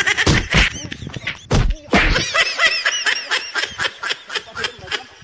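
A person laughing hard in rapid, repeated bursts, about four or five a second. A few heavy thumps come within the first second and a half.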